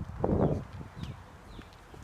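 Footsteps and rustling in brush: one loud rustle shortly after the start, then a few softer scuffs.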